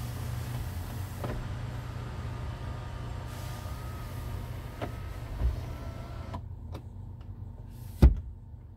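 2020 Kia Telluride's electric sunroof motor running as the glass panel slides, a steady whine with a few light clicks that stops about six and a half seconds in. Near the end comes one sharp, loud snap as the sunshade is pushed shut.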